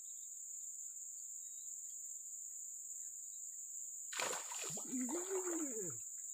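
A hooked snakehead thrashing and splashing at the lake surface, starting about four seconds in, over a steady high insect buzz.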